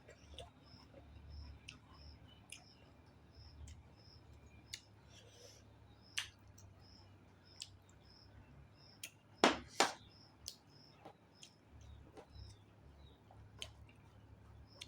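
Eating sounds: scattered soft clicks and smacks of chewing, with two louder clicks close together about nine and a half seconds in. A faint high chirp repeats steadily, about twice a second, behind them.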